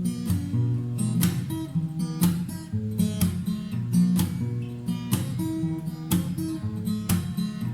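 Acoustic guitar strummed in a steady rhythm, with strong strokes about once a second and chords and bass notes ringing between them.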